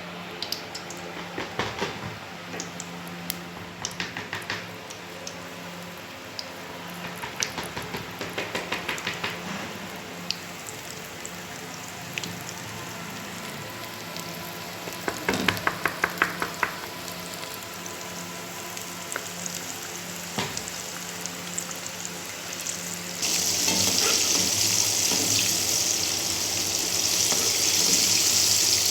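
Frying in a pan: scattered bursts of light clicking and scraping, then a loud, steady sizzle that starts suddenly about 23 seconds in.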